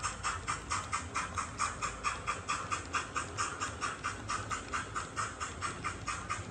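Digital sound decoder in an HO model of a NSWGR 38 class steam locomotive playing steam exhaust chuffs through its small onboard speaker, a steady beat of about four chuffs a second as the engine runs at speed.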